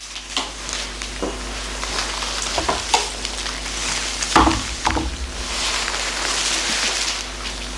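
Steady hiss with a low hum underneath, broken by a few knocks and rustles between about two and a half and five seconds in, the loudest pair near the middle. The knocks and rustles come from someone in a long robe walking to a table and handling a scythe.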